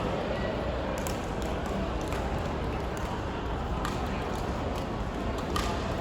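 Badminton rally: sharp taps of rackets striking the shuttlecock, roughly once a second, over a steady background hum.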